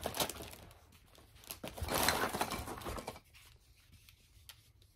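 Crinkly rustling and handling of shopping-haul packaging being rummaged through, loudest about two seconds in, then fading to a few soft clicks.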